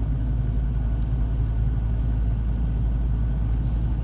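Steady low rumble of a car driving on a gravel road, heard from inside the cabin: engine and tyre noise.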